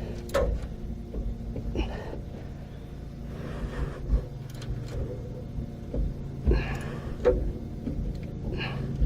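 Scattered clicks, scrapes and rustles of hands and a tool working a bolt on a battery cable terminal, over a steady low hum.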